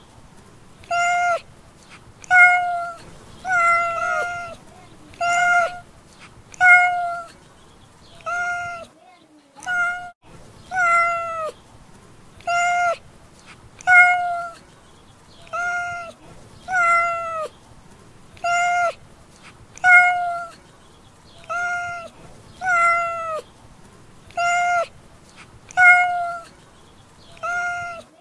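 A domestic cat meowing over and over, one short meow about every second and a half, each one dropping in pitch at its end.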